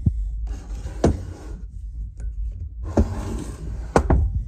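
Handling noise: a fleece sleeve rustling and brushing close to the microphone, in two stretches, with a few sharp knocks as a heavy sewing machine is shifted on the table.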